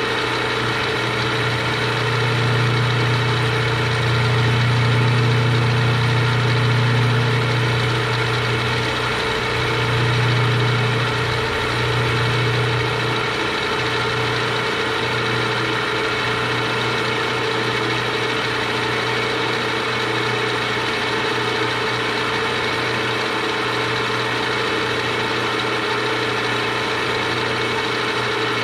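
Milling machine running at about 850 RPM, a 3/16-inch end mill cutting a slot through a metal part. It makes a steady hum with a constant higher tone, swelling slightly a few seconds in and again about ten seconds in.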